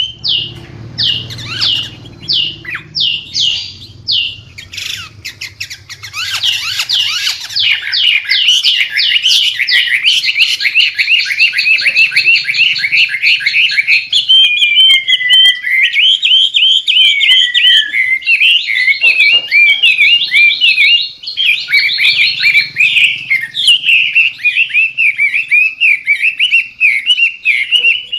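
White-rumped shama singing loudly and without pause: quick sweeping whistled notes, a fast run of rapidly repeated notes from about six seconds in, then varied warbling phrases.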